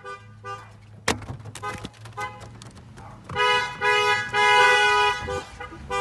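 Car horns honking in long and short blasts, loud from a little over three seconds in. A single sharp click comes about a second in.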